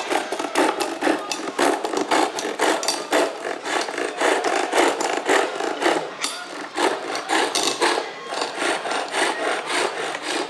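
Wood being cut with a hand chisel on a traditional bow lathe, in quick rhythmic scraping strokes of about four or five a second, with a short pause about six seconds in.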